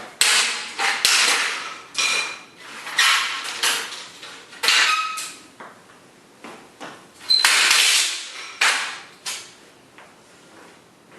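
Hammer knocking a fitting off a folding screen door, about a dozen sharp, irregular blows, some leaving a brief metallic ring from the frame.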